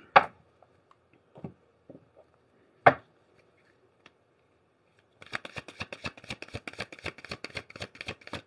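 A few separate sharp taps and clicks, then from about five seconds in a fast, dense run of card clicks as a deck of tarot cards is shuffled in the hands.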